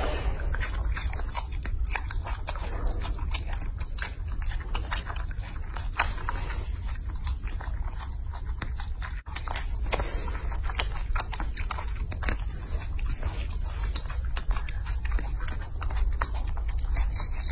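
Baby macaque biting and chewing crisp, crumbly food: many small crunching clicks, irregular, over a steady low rumble.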